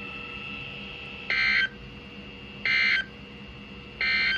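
Emergency Alert System SAME end-of-message data bursts over weather radio: three short, identical warbling digital bursts about 1.3 seconds apart, signalling the end of the weekly test message. A faint steady hum with thin tones runs between them.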